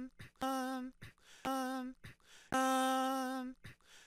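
A short stretch of an isolated sung vocal track replayed three times: each time a single held note with slight vibrato that stops abruptly, with short clicks in the gaps. The stretch is being replayed to find a little cough on the vocal.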